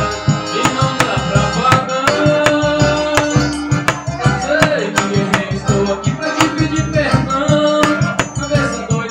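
Live forró pé de serra played by a trio: piano accordion melody over a steady beat of triangle and zabumba bass drum.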